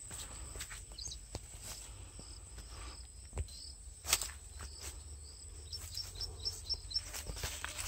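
Rural outdoor ambience: a steady high-pitched insect drone with small birds chirping, including a quick run of short chirps near the end. A few sharp taps or rustles break in, the loudest about four seconds in.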